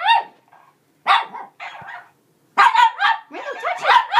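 Shih Tzu puppy barking at a new sock monkey toy: a string of about nine short barks, coming faster in the second half.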